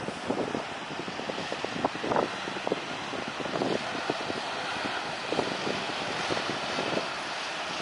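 Jet engines of an old military twin-jet on the runway at the start of its takeoff: a steady rushing jet noise, broken all through by short, uneven rough bursts.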